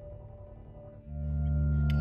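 Tense background music: a held low bass drone swells in about halfway through and cuts off at the end, over a sustained higher tone.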